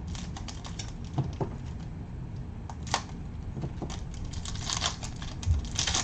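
Baseball cards being handled and a shiny wrapped card pack crinkling as it is torn open, with scattered sharp clicks and rustles that grow busier near the end, over a low steady hum.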